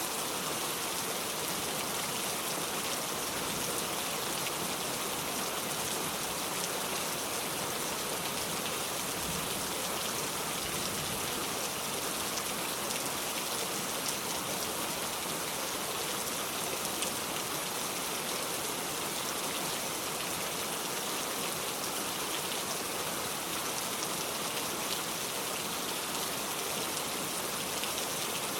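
Steady rain falling, a continuous even hiss with many fine drop patters.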